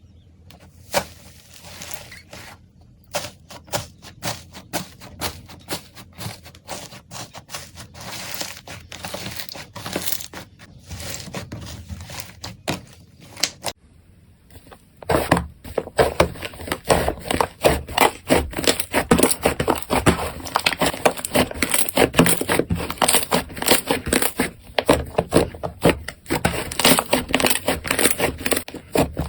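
Slime being squeezed, poked and stretched by hand, a dense run of sticky clicks, pops and crackles. About halfway through the sound changes to a louder, denser crackling.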